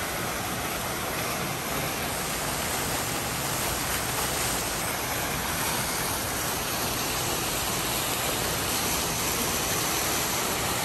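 Steady rushing of falling water from an indoor waterfall, an even hiss-like noise with no breaks.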